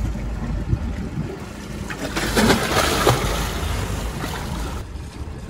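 A man jumping off a catamaran's bow into the sea: a splash about two seconds in, then churning water that fades over the next two or three seconds, under a steady low rumble.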